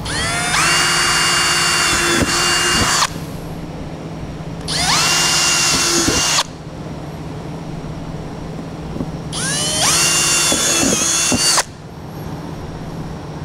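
Power drill pre-drilling bolt holes through a car's engine cover, in three separate bursts. Each burst whines up to speed and holds steady for about two to three seconds before stopping.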